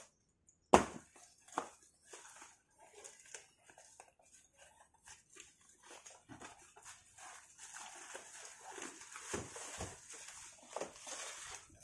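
Cardboard shipping box being pulled open and handled, with a sharp knock just under a second in and scattered scrapes and rustles. In the later seconds a plastic-wrapped car grille is slid out, its plastic wrap crinkling.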